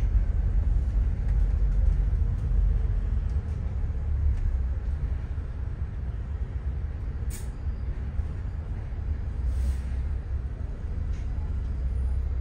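Inside a moving city bus: the steady low rumble of its engine and the road, with two short hisses reaching high up about seven and nine and a half seconds in.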